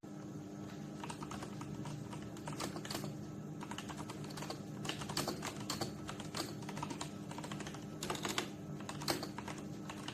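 Typing on a mechanical keyboard: a dense, irregular run of key-switch clicks and keycap strokes, over a low steady hum.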